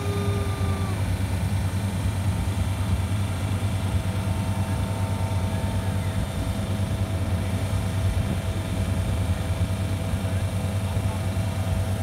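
Skid steer loader's engine running steadily at low speed as the machine creeps forward, a continuous low hum.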